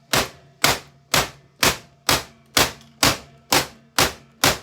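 Ten hard, evenly spaced blows struck on a Hoover vacuum cleaner, about two a second, each sharp with a short ringing tail.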